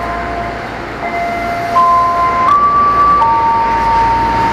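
A slow electronic tune of plain held notes, often two at a time, each stepping to a new pitch every second or so, over a steady low rumble from the standing electric commuter train.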